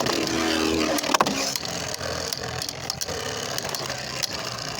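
Beyblade Burst spinning tops whirring and clashing in a plastic stadium after a launch: a steady hiss of spinning with sharp clicks of collisions, the loudest about a second in, and the whir slowly getting quieter.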